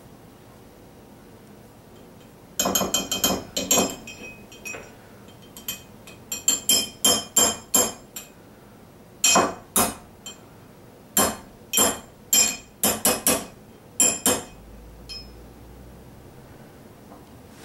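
Metal spoon clinking and tapping against a thick glass mug as ice cream is scooped and knocked off into it: an irregular string of sharp, ringing clinks that starts about two and a half seconds in and stops about fourteen and a half seconds in.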